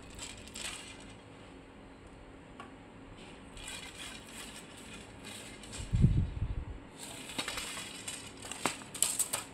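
Handling noise from a fishing rod turned in the hands: skin rubbing and sliding on the rod blank, light clicks, and a dull knock about six seconds in.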